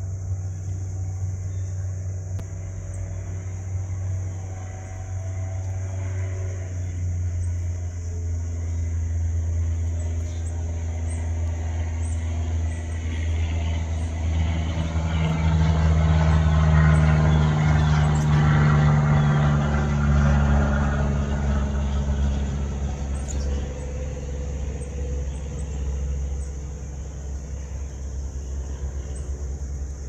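Steady low rumble of road traffic, with one vehicle passing louder about halfway through, over a steady high hiss.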